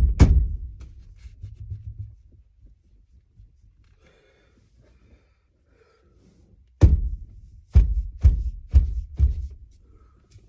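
Hard thumps of a Jeep Wrangler steering wheel being banged to knock it off its column shaft without a puller; the wheel stays stuck. A quick thump right at the start, a pause of a few seconds, then about five more in a run from about seven seconds in.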